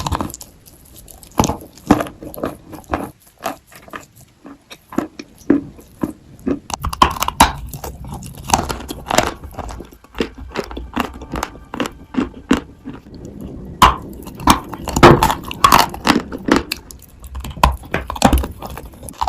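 Close-up biting and chewing of dry, powdery Turkestan edible chalk: a quick run of sharp crunches that grows denser and louder about a third of the way in.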